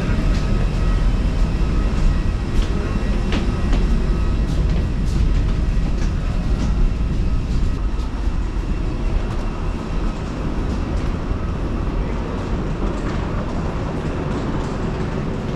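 Steady low rumble with a faint whine, with scattered clicks of footsteps and rolling suitcase wheels along the floor of an airport boarding bridge.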